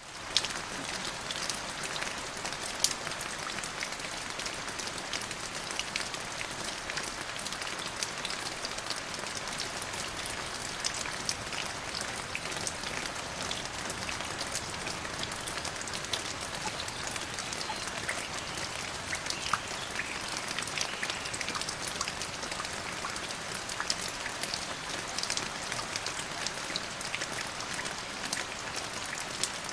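Rain falling steadily, with many separate drops ticking on a surface through the even hiss.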